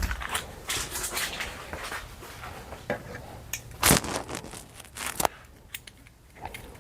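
Items being handled and shifted while rummaging through a storage unit: rustling and scraping broken by scattered knocks, the loudest a sharp knock about four seconds in.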